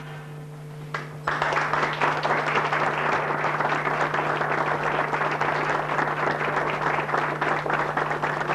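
Audience applauding, starting suddenly about a second in and keeping up steadily, over a steady low hum.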